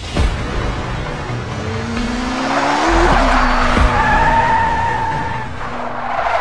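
Race-car sound effects: an engine revving up in a rising pitch, then a tyre squeal lasting about a second and a half, about four seconds in.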